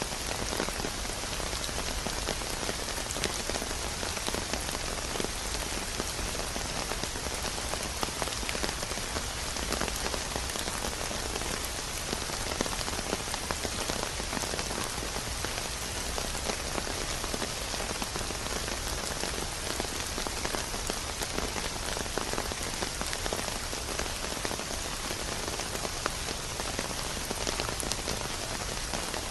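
Steady rain falling on a surface, a continuous even patter of drops with fine individual ticks and no thunder.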